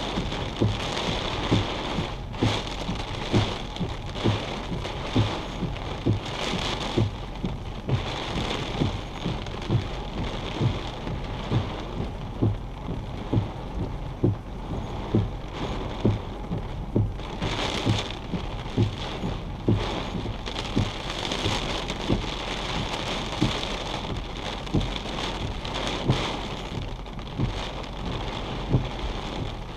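Heavy thunderstorm rain beating steadily on a vehicle, heard from inside the cabin, with frequent short low thumps about once a second.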